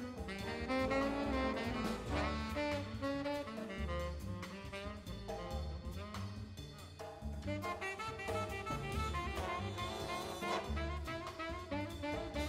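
Live big-band jazz: a tenor saxophone solo over walking upright bass and drum kit, with the brass section playing behind it.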